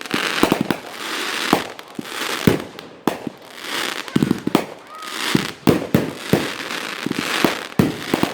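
Fireworks going off in quick succession: a run of sharp bangs, about one or two a second, with crackling between them.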